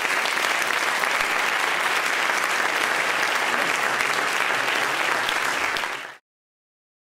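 Audience applauding steadily after a spoken-word poem, the applause cut off abruptly about six seconds in.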